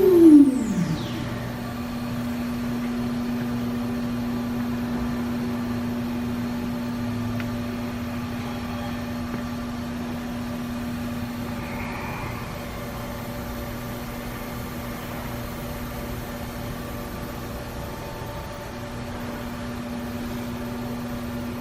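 High-speed machining-center spindle spinning down: its whine falls quickly in pitch and dies away within about a second. After that the machine's steady mechanical hum with a constant low tone runs on at idle.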